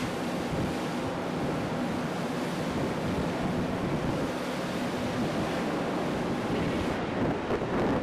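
Sea water rushing and splashing past a ship's hull as it steams through choppy water, with wind buffeting the microphone.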